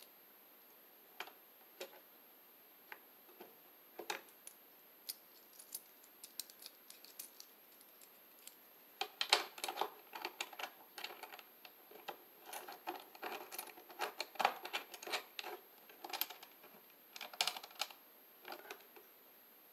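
Irregular small clicks and rattles of electrical wires and wire nuts being handled and twisted together at a plastic junction box. Scattered at first, then dense clusters of clicks from about nine seconds in.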